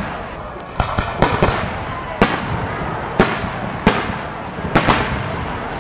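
Aerial firework shells bursting: about eight sharp bangs, several close together near the start and then singles roughly a second apart, over a continuous rumbling wash.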